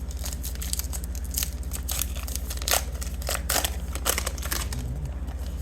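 Foil trading-card pack wrapper being torn open and crinkled by hand, in a rapid, irregular run of crackles, over a steady low hum.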